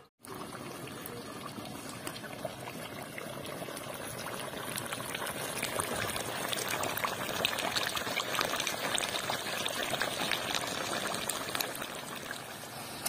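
Chicken curry bubbling and sizzling as it simmers in a metal pot, a steady crackle that grows a little louder midway. The meat is being cooked down in its own released juices until the liquid dries.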